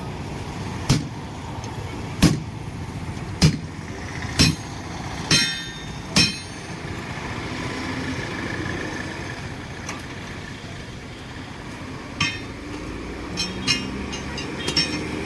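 Hammer blows on a heavy truck tyre's steel wheel disc being taken apart: six sharp strikes about a second apart, some ringing metallically, then a pause and a few lighter knocks near the end.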